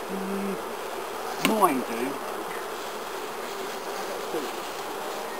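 Honeybees buzzing around a hive: a steady hum with single bees whining past. About a second and a half in, a sharp tap comes with one louder buzz that sweeps down in pitch as it passes close.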